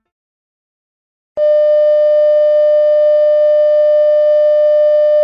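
Bars-and-tone reference test tone: after silence, a single steady electronic beep starts abruptly about a second and a half in and holds loud at one unchanging pitch.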